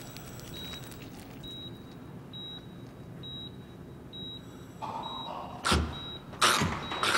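A short, high electronic beep repeating a little faster than once a second over a low steady hum. Near the end come a few loud, sudden hits.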